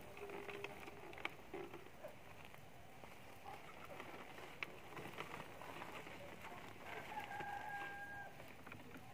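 A rooster crowing faintly, with one long held call about seven seconds in and a lower held call at the start, over light rustling and clicks of cloth and a plastic bottle being handled.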